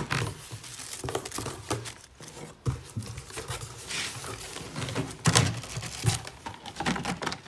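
Cardboard box and packaging being handled and shifted: irregular rustling and crinkling with several sharp knocks.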